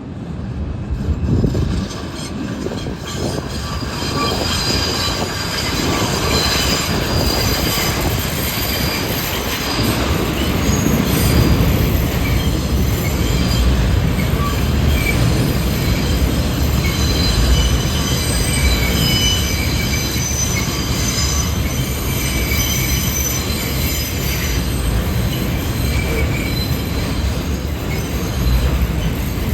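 New York City Subway train passing through the station, its steel wheels squealing on the rails in several steady high tones over a heavy rumble. The rumble builds over the first few seconds, then stays loud.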